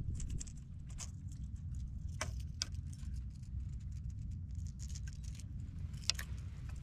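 Fishing tackle being handled: a spinning reel, its line and a lure give scattered small clicks, ticks and rattles. A steady low rumble runs underneath.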